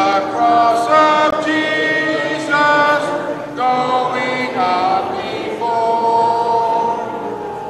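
A group of voices singing a hymn in long held notes for the recessional.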